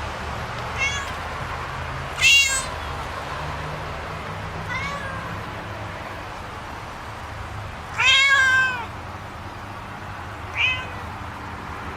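A domestic cat meowing five times, a few seconds apart. The meow about two seconds in and a longer one a little past the middle are the loudest; the others are softer.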